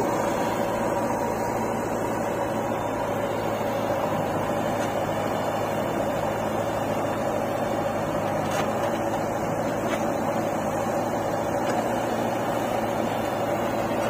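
Diesel engines of a JCB 3DX backhoe loader and a John Deere tractor running steadily at idle, an even drone with a constant pitch.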